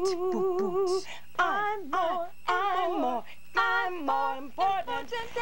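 A voice singing without accompaniment, in long held notes with a wide vibrato broken by short sliding phrases.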